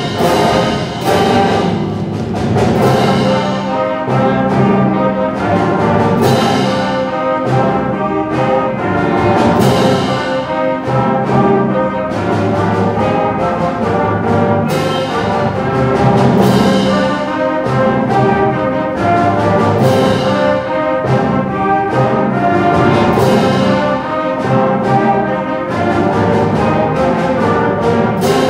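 Youth concert band playing a lively piece: clarinets and brass sounding together over frequent ringing percussion hits.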